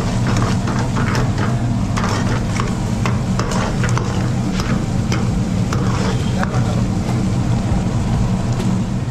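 Metal ladle stirring and scraping through thick simmering butter chicken gravy in a metal pan on a gas stove, with short scrapes and clinks over about the first seven seconds. A steady low hum runs underneath.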